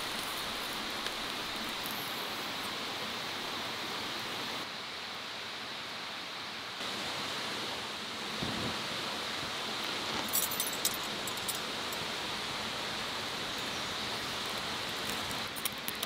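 Steady rushing hiss of a mountain stream, with a short run of small crackles from the wood fire about ten seconds in.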